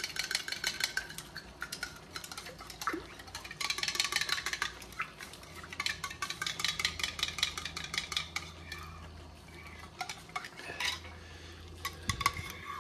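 Metal spoon stirring a drink in a cup, clinking rapidly against the sides in several spells as it mixes in crystallized sports-drink powder.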